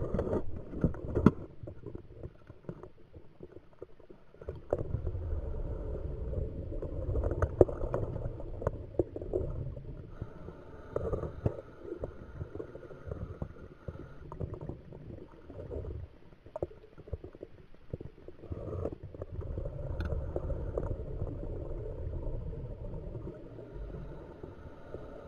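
A scuba diver's exhaled bubbles rumbling and gurgling past the underwater camera in long bursts of several seconds, with quieter stretches between breaths. A few sharp knocks on the camera housing near the start.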